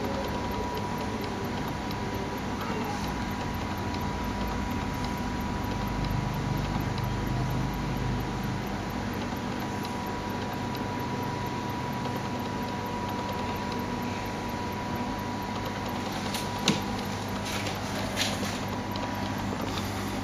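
Steady machine hum and hiss of aquarium equipment, with a thin steady high tone that fades out late on. One sharp click comes near the end, followed by a few fainter ones.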